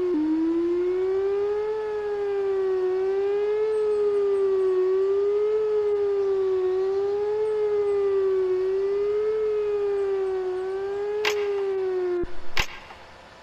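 Whelen 4004 electronic outdoor warning siren sounding a steady tone that wavers gently up and down in pitch about once every two seconds. The tone cuts off suddenly about twelve seconds in, with a few sharp clicks just before and as it stops.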